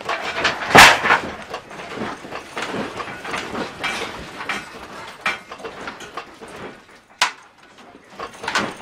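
Household contents of a high-rise apartment rattling, creaking and clattering as the building shakes in a strong earthquake, with a loud crash about a second in and a single sharp knock about seven seconds in.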